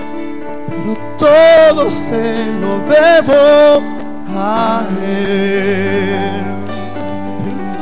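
Live worship music: a man sings long, loud held notes with vibrato into a microphone over steady band accompaniment, the two loudest notes coming about one and three seconds in.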